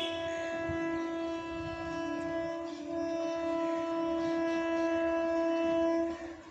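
Train horn of an approaching electric local train sounding one long steady note, dipping briefly about three seconds in, then held again until it cuts off just after six seconds.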